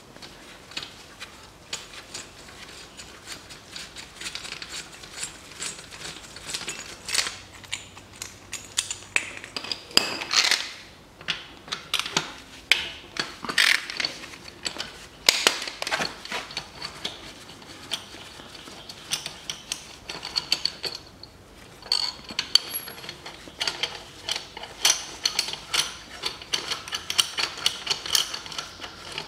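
Ratchet wrench clicking in quick runs as bolts are undone on an engine's drive-belt tensioner, with sharp metal clinks of tools and parts in between.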